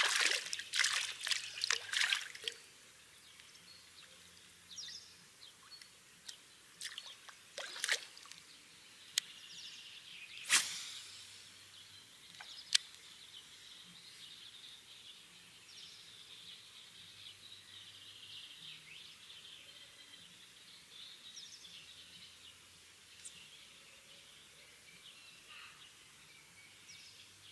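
A quick run of small splashes and clicks, then a few single sharp clicks, over faint waterside ambience with birds chirping.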